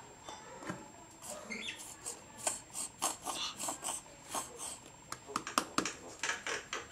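White glue squeezed from a plastic squeeze bottle into a plastic cup, spurting out in a run of short, irregular squirts that come thicker toward the end.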